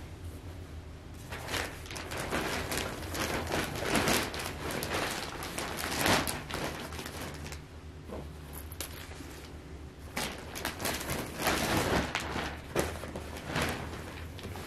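Clothing and fabric rustling and handling noises close to the microphone, in two spells, with a few knocks.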